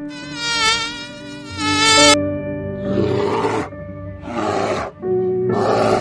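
A wavering high buzzing tone for the first two seconds. Then, over sustained background music, bears make rough growls three times, about a second and a quarter apart.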